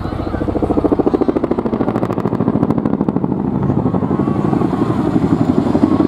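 RAF Chinook tandem-rotor helicopter flying its display, the rotor blades beating in a rapid, even pulse that grows louder as it comes closer.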